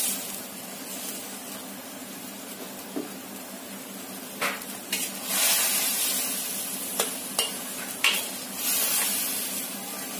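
Eggplant and green beans frying in a steel wok, sizzling, as a long metal spatula stirs them and scrapes against the pan. There are a few sharp clinks of the spatula on the wok a little past halfway.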